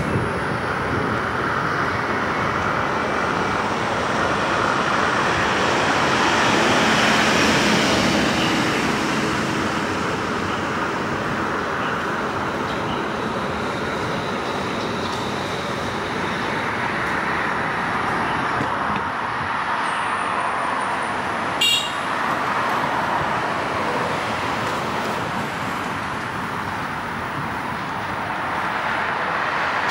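Road noise from a car driving along a city road: a steady rush of tyres and passing traffic that swells around seven seconds in. A single sharp click with a brief ring cuts through about two-thirds of the way in.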